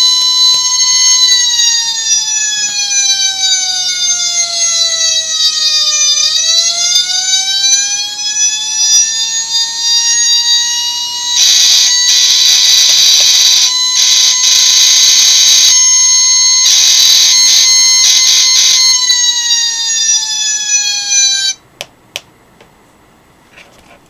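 Electronic fire truck siren module playing a Federal Q-style mechanical siren wail through a small speaker: the tone winds slowly down, climbs back and holds steady, with three Grover-style air horn blasts laid over it about halfway through. It then starts winding down again and cuts off suddenly, followed by a few faint clicks.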